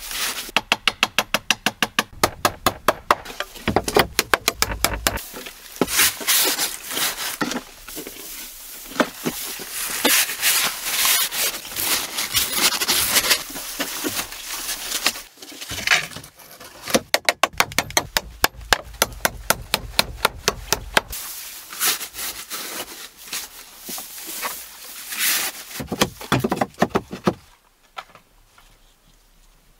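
Dry hay rustling and crackling as gloved hands grab it and pack it into a wooden wall cavity, in quick runs of crisp crackles.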